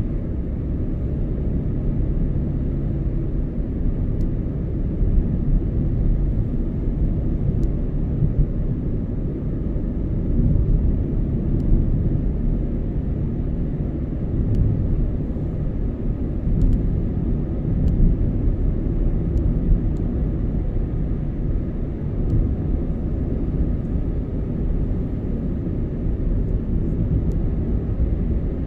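Car driving: a steady, low rumble of road and engine noise with no changes, and a few faint light ticks.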